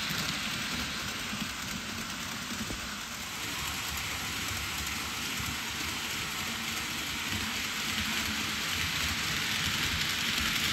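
TOMIX N-gauge model train (Twilight Express Mizukaze) running on the layout track: a steady rolling hiss of small wheels on rail over a low motor rumble. It dips a little a few seconds in and grows louder near the end as the train approaches.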